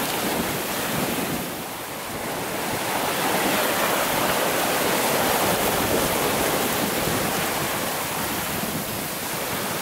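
Sailing yacht's hull rushing through the sea under sail: a steady hiss and wash of bow wave and spray along the side, mixed with wind on the microphone. The rush swells louder in the middle and eases a little near the end.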